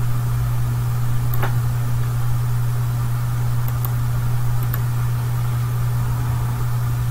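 Steady low electrical or machine hum, unchanging, with a few faint clicks, the clearest about a second and a half in.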